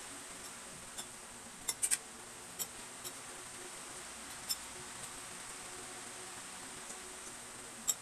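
Metal cutlery clinking against ceramic bowls and plates in a few sharp, separate clicks, three in quick succession about two seconds in, over a steady faint hiss.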